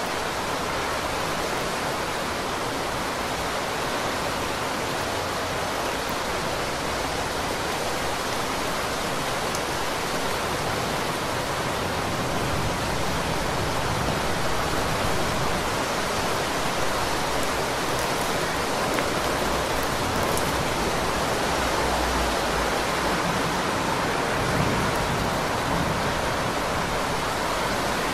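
Heavy rain falling, a dense, steady hiss that grows slightly louder in the second half.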